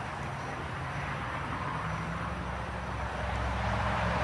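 A steady low hum and rumble, getting a little louder near the end.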